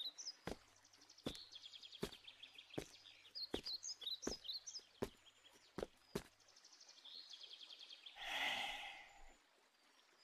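Slow, evenly spaced footsteps, about one every three-quarters of a second, over faint birds chirping. Near the end comes a short breathy rush of noise.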